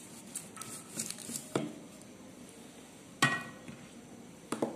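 A wooden rolling pin rolling flat dough on a board, giving a few separate light knocks and clatters as it is worked and set down. The loudest knock, about three seconds in, rings briefly.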